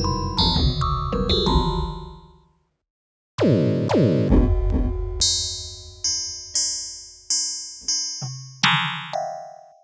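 Dark MIDI played back on a synthesized piano: dense clusters of hundreds of notes sounding at once, fading out about two and a half seconds in. After a short gap, a huge massed chord hits, then a string of struck chords follows, each dying away, with the last fading out at the end.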